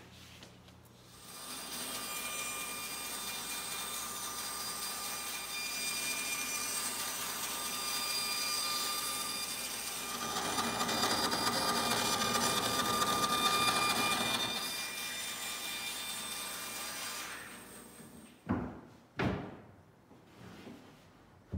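Band saw running and cutting the plywood fore-deck piece, louder for a few seconds in the middle while the blade is in the cut; it winds down near the end, followed by two knocks of wood.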